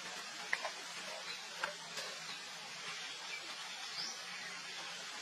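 Steady background hiss with a few short, high squeaks from baby macaques, about half a second in and again near a second and a half in.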